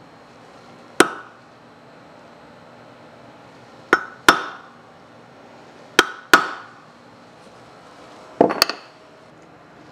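Small hammer striking a steel punch held on a metal bearing housing: one blow about a second in, then two quick pairs of sharp metallic taps, each ringing briefly. A duller double knock near the end.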